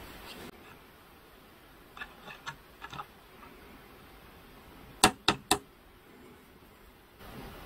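Small taps, then three sharp clicks in quick succession about five seconds in, from tweezers handling a water-slide decal in a clear plastic bowl of water.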